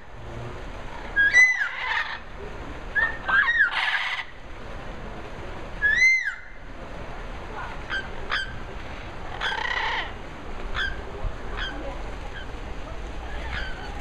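Parrots calling from a perch: a few loud whistled calls that arch up and down in pitch, with harsh squawks among them, in the first six seconds, then a series of shorter, softer sharp calls.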